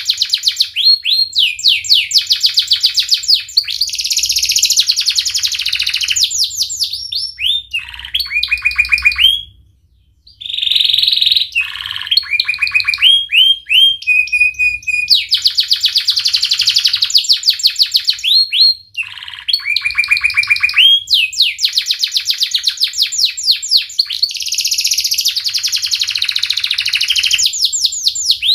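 Domestic canary singing in full song: long rolls of fast repeated rising notes, with a brief break about ten seconds in and a short held whistle a few seconds later.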